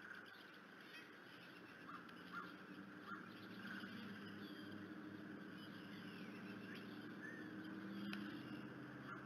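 Faint outdoor bird calls: a few short calls about two and three seconds in, with higher whistled songbird notes scattered through, over a low steady hum.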